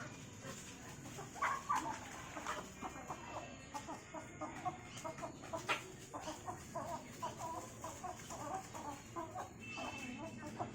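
Chickens clucking in a string of short, quick calls, busiest in the second half, with a few sharp clicks.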